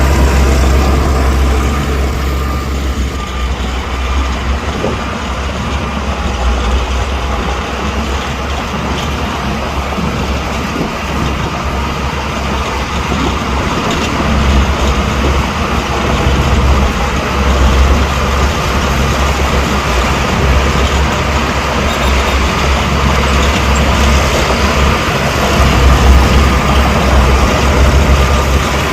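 Heavy diesel earthmoving machinery running and working, a continuous deep engine rumble with a noisy mechanical din, swelling louder about halfway through and again near the end.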